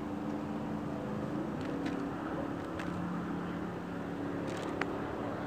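Steady motor hum over a background rush, its low droning tone stepping up in pitch about a second and a half in, with a few faint clicks.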